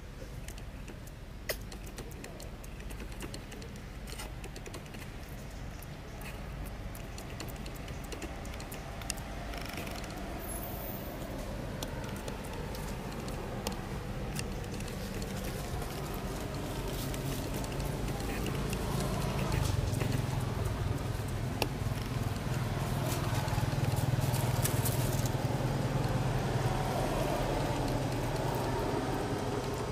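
A steady low motor hum that swells louder about two-thirds of the way in, with scattered faint clicks.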